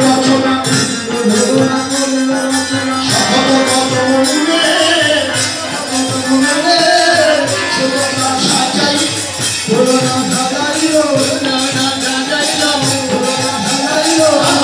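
Kirtan music: khol barrel drums played with both hands in a fast, dense rhythm, with metallic jingling and a wavering melody line over it.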